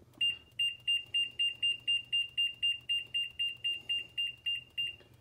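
Whirlpool oven control panel beeping in quick, even short beeps, about four a second, as the temperature-setting key is pressed to step the oven setting up toward 450 degrees.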